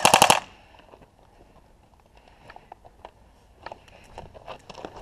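Airsoft electric gun firing a short, very rapid burst of about eight shots in under half a second, followed by scattered faint clicks and footsteps.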